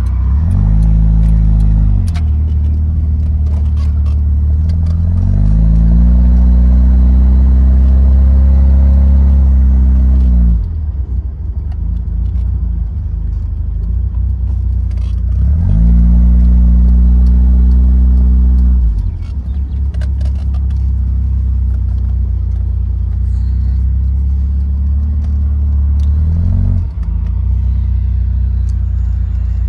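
1979 Fiat 124 Spider 2000's twin-cam four-cylinder engine, on a Weber 34 ADF carburettor with an ANSA muffler, driving under load. The revs climb and get louder under throttle three times, each time dropping back when the throttle is lifted or a gear is changed, with a short blip near the end.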